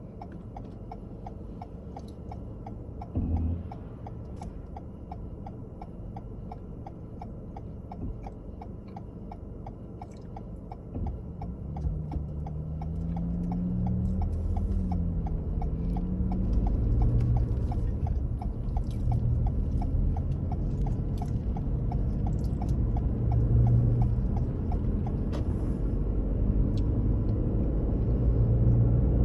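Car running on the road with a low rumble and a steady rapid ticking, a thump about three seconds in. From about twelve seconds in the engine pulls harder and gets louder, its pitch rising and falling as it accelerates.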